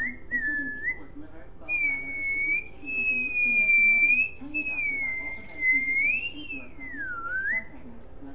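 A person whistling. It begins with a few short notes that flick upward, then moves into longer held notes that waver in pitch, dip low about seven seconds in and rise again before stopping.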